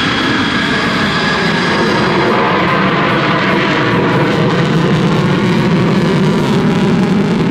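Jet roar of a B-1B bomber's four afterburning turbofan engines as it flies past overhead, so loud. A high whine fades after the first couple of seconds while the low rumble grows a little louder.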